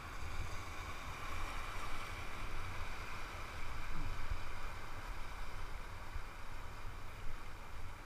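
Steady rush of river water around an inflatable raft moving through shallow rapids, with a low wind rumble on the raft-mounted action camera's microphone.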